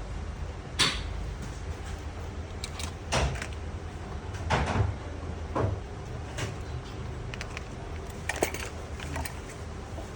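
Workshop clatter: about six irregular knocks and clicks of parts being handled, over a steady low hum.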